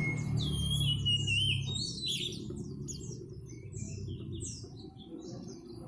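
White-eyes (pleci) chirping: a rapid, busy run of short, high, downward-slurred chirps. A low hum sits underneath and fades out about two seconds in.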